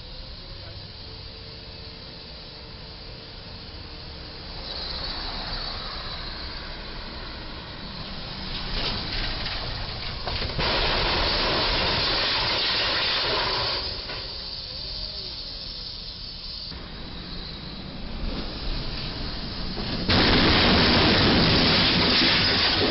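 A box truck's box body hitting the steel crash beam of a low railway trestle, with street traffic noise: a cluster of knocks and scraping about nine seconds in, then loud hissing noise that starts and stops abruptly, twice.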